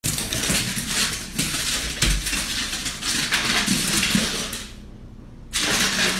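A dog's claws scrabbling and clicking on a hardwood floor as it dashes after a laser dot: a rapid, scratchy run of clicks. It dies down for under a second about three-quarters through, then picks up again.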